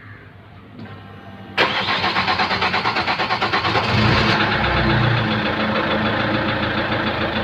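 Chevrolet Cruze diesel engine starting about one and a half seconds in. It cranks with a pulsing sound for a couple of seconds, then catches and settles to a steady idle. This is the start after a diesel fuel filter change, to check for leaks.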